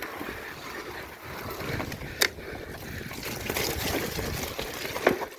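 Mountain bike ridden through wet mud, tyres hissing and splashing steadily, with two sharp knocks from the bike, one about two seconds in and one near the end.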